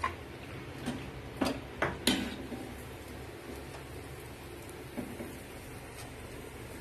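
Light metallic clicks and knocks of a steel perforated ladle against a steel kadai, about five in the first two seconds and one more about five seconds in, over a low steady hum.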